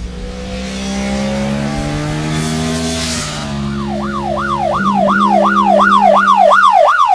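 A steady drone that shifts pitch in steps, with a whoosh swelling and fading, then about halfway in a loud yelp siren sweeping rapidly up and down about three times a second.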